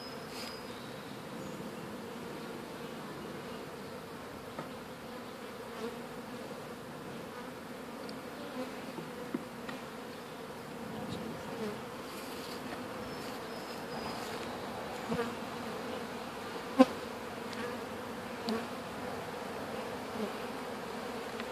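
A honeybee swarm buzzing steadily in an open hive box, a dense even hum. A few short knocks come from the wooden hive frames being handled, the sharpest one about 17 seconds in.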